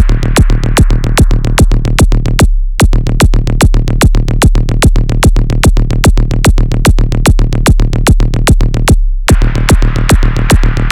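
Electronic dance track with a fast, steady drum-machine beat over a sustained deep bass. The beat drops out briefly twice, about two and a half seconds in and again about nine seconds in, while the bass holds.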